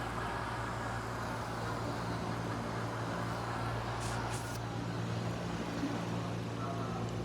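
B2308 box fan running in a window, exhausting air: a steady rush of air over a low, even motor hum.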